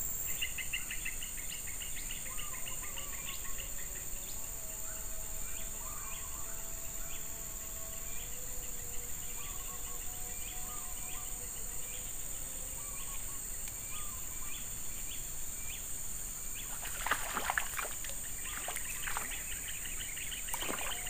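Riverside ambience: a steady high drone of crickets and other insects, with birds chirping in short repeated calls. Near the end come a few short noisy bursts.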